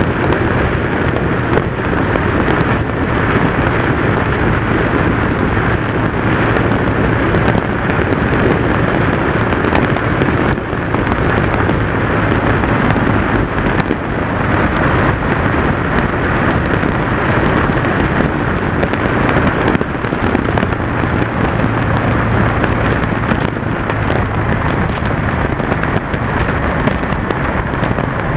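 Wind rushing and buffeting over an action camera's microphone on a moving motorcycle, with the steady drone of the Yamaha TDM's parallel-twin engine underneath at a constant cruising speed.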